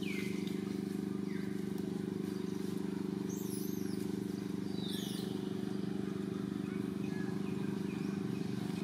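A steady low mechanical hum, like an engine running nearby, runs throughout. A few short, high squeaks that fall in pitch sound over it, near the start and again around three to five seconds in.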